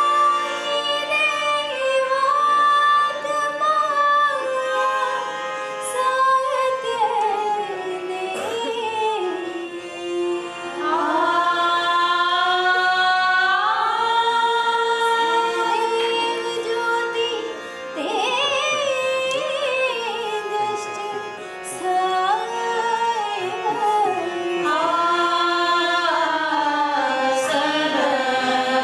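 A group of women singing a devotional song together in one melody, with long held and gliding notes, over a harmonium's steady accompaniment.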